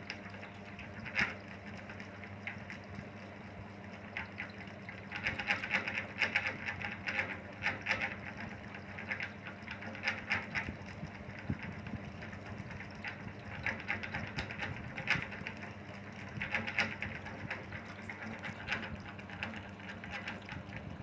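Steady low electrical hum, with repeated patches of fine crackling every second or two.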